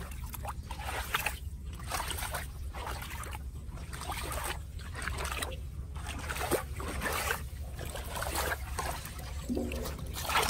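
Water trickling and splashing in irregular surges.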